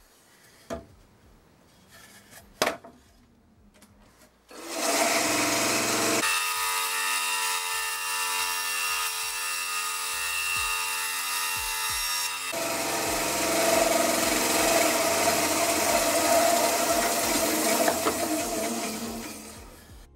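A few knocks of wood being handled, then a benchtop bandsaw starts abruptly about four seconds in. It runs loud and steady, cutting through a piece of wood, and falls away near the end.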